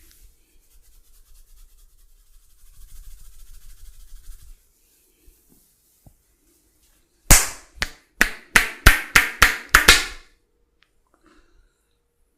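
Hands rubbing over skin, then a run of about nine sharp slaps from a percussive massage, coming slightly faster toward the end.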